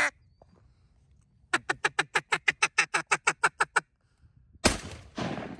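Duck call blown in a quick, even run of about fourteen quacks, roughly six a second, calling to incoming ducks. Near the end there is a sudden loud burst of noise, then a second one.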